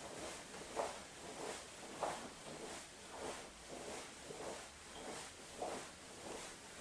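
Faint, rhythmic swishing and rustling of clothing, about one and a half swishes a second, as the torso and arms swing side to side in a horse-stance twisting exercise.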